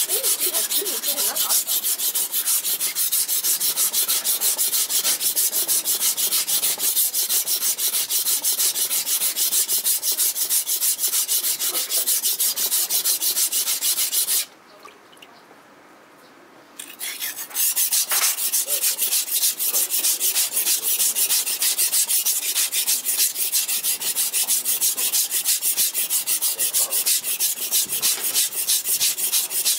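Tosa-style all-purpose kitchen knife being stroked back and forth on a wet whetstone: rapid, even scraping strokes of steel on stone. They stop for about two seconds midway, then resume.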